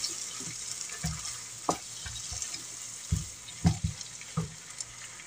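Slotted wooden spatula stirring chicken hearts and tomato in a nonstick frying pan, with about five scrapes and knocks against the pan. A steady sizzle of the wet sauce cooking runs underneath.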